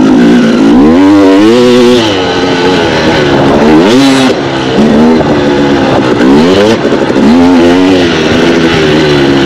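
2016 KTM 250 XC's two-stroke single-cylinder engine under hard riding, its note repeatedly rising and dropping back, about four surges, as the rider gets on and off the throttle.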